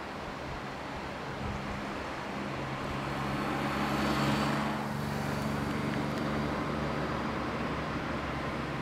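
A motor vehicle passing on a nearby road: engine hum and tyre noise that swell to a peak about four seconds in, then ease off.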